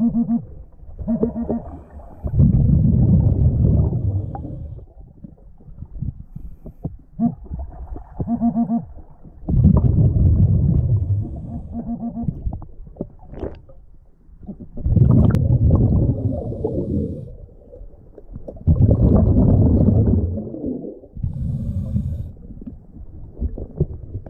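A diver breathing through a scuba regulator underwater: a short honking inhale through the regulator, then a loud rush of exhaled bubbles lasting about two seconds, four breaths in all, roughly every five to six seconds.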